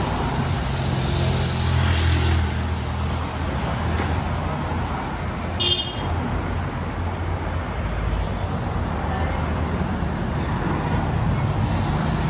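Busy street traffic passing close by, with a steady low rumble of car and motorcycle engines that swells as a vehicle goes past in the first couple of seconds. A short, high horn toot sounds about halfway through.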